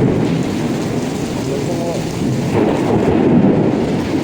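Severe thunderstorm with heavy rain and strong wind, a loud low rushing noise that swells again about two and a half seconds in.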